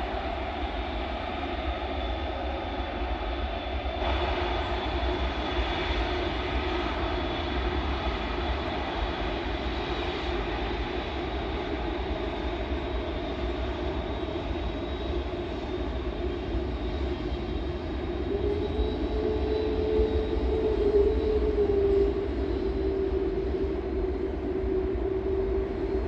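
Airbus A380's four jet engines running: a steady whine over a deep rumble. About two-thirds of the way through, one whining tone rises a little and holds, and the sound grows slightly louder.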